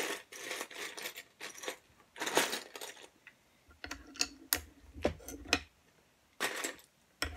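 Loose plastic LEGO bricks rattling and clattering as a hand rummages through a plastic bin of pieces, then a run of sharp separate clicks as bricks are pressed onto a plate, and another rattle of rummaging near the end.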